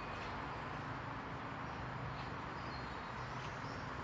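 Train approaching from a distance: a low steady hum over a constant hiss of background noise, with a few faint bird chirps.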